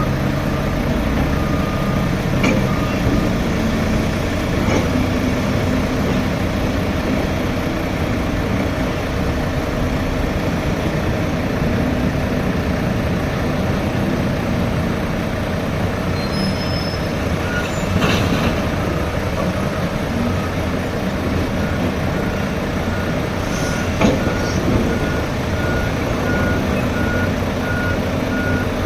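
Heavy diesel machinery running steadily: an excavator and a tipper truck. A reversing beeper sounds in the first few seconds and again over the last several seconds, and there are sharp knocks about 18 and 24 seconds in.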